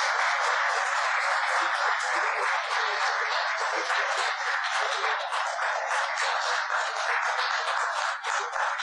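Audience applauding: many hands clapping at once in a steady, dense patter that begins to thin out near the end.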